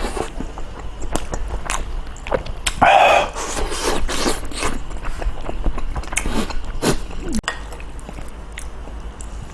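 Close-up eating sounds: chewing and biting, with utensil clicks and scrapes against a bowl. A single louder, short sound comes about three seconds in.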